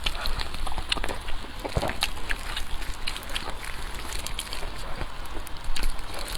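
Close-miked eating sounds: chewing, with short irregular clicks and crackles.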